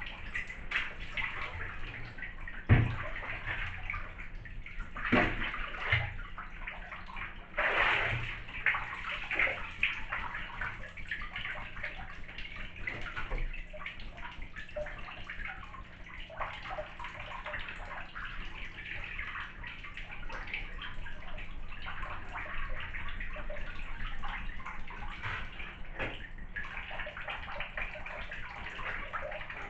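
Water sloshing and lapping in a part-filled bathtub as a person moves about in it. A few sudden knocks and splashes come in the first eight seconds, the loudest about three seconds in.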